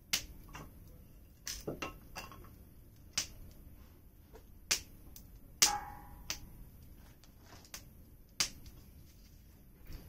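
Firewood burning and crackling: sharp pops come at irregular intervals over a faint low background. The loudest pop, about halfway through, rings briefly.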